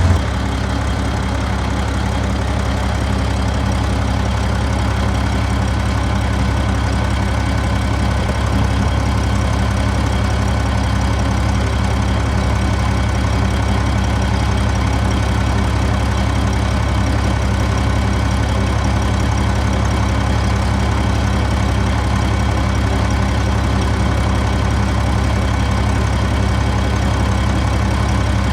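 A heavy diesel engine idling steadily at an even speed.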